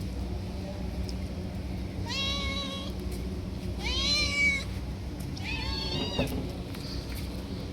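Stray cats meowing for food: three drawn-out meows, each a couple of seconds apart, over a steady low hum.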